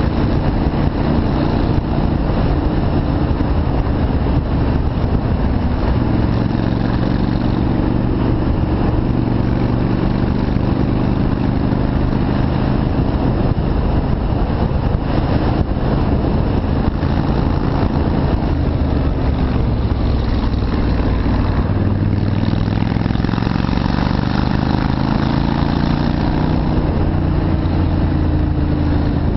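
Yamaha Virago V-twin motorcycle engine running under way, holding a steady pitch for most of the time and rising as it accelerates about three quarters of the way through.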